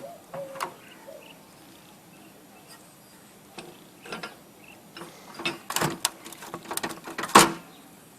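Scattered clicks and knocks of hard parts being handled while an old desktop computer is worked on, sparse at first and then bunched in the second half, with the loudest knock a little after seven seconds.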